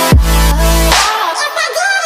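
Dubstep music: a heavy bass drop with a kick hit just after the start, sustained bass and synth notes, and a sung vocal line.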